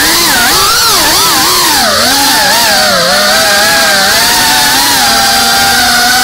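Motors and propellers of a GEPRC Cinelog35 ducted FPV quadcopter, recorded by its onboard camera. A loud, continuous whine wavers up and down in pitch with the throttle through the first few seconds, then holds steadier as it flies in toward the pilot.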